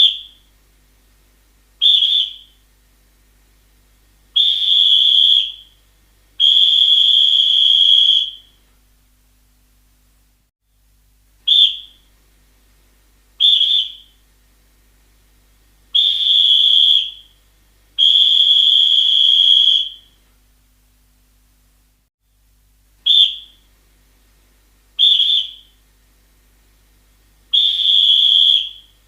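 Referee's whistle blown in a repeating sequence: two short blasts, then two longer ones of about one and two seconds. The sequence comes round about every eleven seconds, each blast a steady high-pitched tone.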